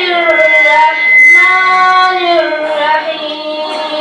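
Quran recitation in the melodic tajweed style: a single high voice holding long, slowly gliding notes in drawn-out phrases, with short breaths between them about a second in and again near three seconds. A thin steady whistle-like tone sits under the voice until about two seconds in.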